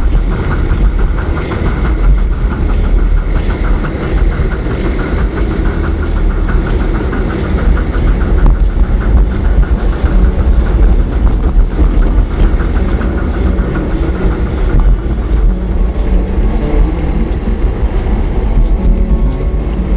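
Live steam 1/8 scale model of a DB Class 23 steam locomotive running along 7¼ inch gauge track: a steady rolling rumble with rapid, fine ticking that fades and returns.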